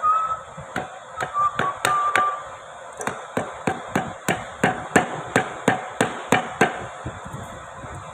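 Hammer tapping a steel-rule cutting blade into a die board: a few spaced sharp taps, then a steady run of about three taps a second that stops shortly before the end.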